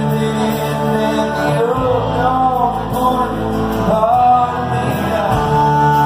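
Live country band playing, with acoustic guitar, electric bass, fiddle and drums under a male voice singing.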